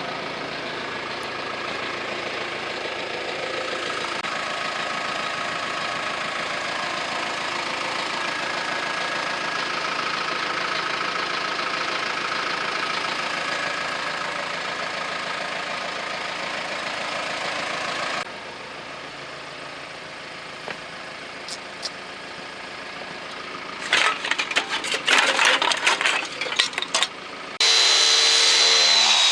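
Arc welder crackling and hissing steadily while a stick weld is run, stopping suddenly about two-thirds of the way in. A quick burst of sharp metallic clicks and knocks follows, and near the end a loud power tool starts abruptly, whining.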